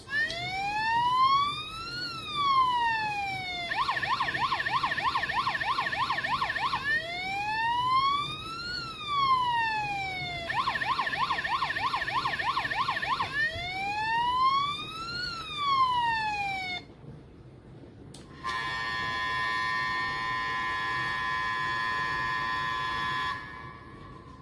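Siku 5401 toy police boat's electronic siren sounding through its small speaker. Slow rise-and-fall wails alternate with faster warbling stretches. It stops about 17 seconds in, and a steady held electronic tone follows for about five seconds.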